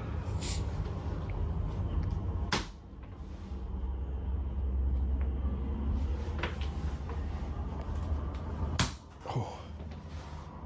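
Sharp blows to a patient's back during a rough manual adjustment: two hard smacks about six seconds apart, the second followed quickly by a softer one, over a steady low hum.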